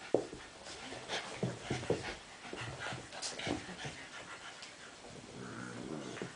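Two Cavalier King Charles spaniels, a Blenheim and a black and tan puppy, play-wrestling: irregular panting and short snuffling noises, with a longer low-pitched sound about five seconds in.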